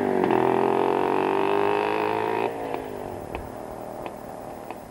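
Motorcycle engine running as the bike rides away, a steady engine note rising slightly in pitch. It drops away suddenly about halfway through, leaving a faint hiss with a few light ticks.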